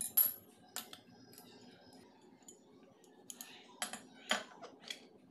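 Brass lamp parts and a small brass bell knocked together and set down on a hard counter: a few sharp clinks near the start, then a quick run of them in the second half.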